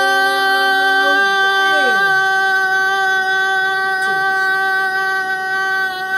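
Women's voices holding a long sung note. One voice drops out with a downward slide about a second in, and the other holds its note very steadily, then slides down at the end.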